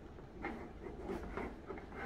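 A few faint plastic clicks and scrapes as a toy Play-Doh noodle-maker train is pressed down and handled.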